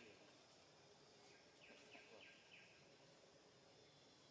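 Near silence: faint outdoor ambience, with a bird calling a quick run of short, falling notes about a second and a half in.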